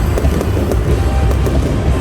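Loud live concert music from the stadium sound system, dominated by heavy, steady bass.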